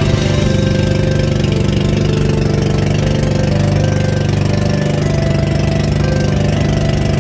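Motorized bangka outrigger boat's engine running steadily under way, holding one even pitch throughout.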